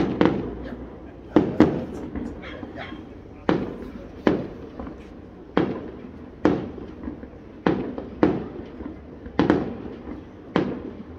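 Fireworks display: aerial shells bursting one after another, about a dozen sharp bangs roughly a second apart, each with a ringing, echoing tail.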